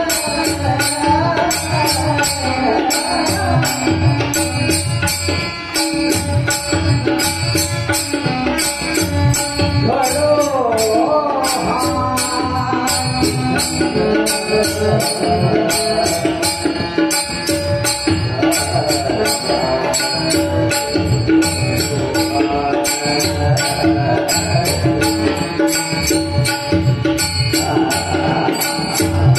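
Marathi devotional bhajan: a male voice singing a wavering, ornamented melody over steady held tones, with a continuous even beat of jingling cymbal strokes and drum beats.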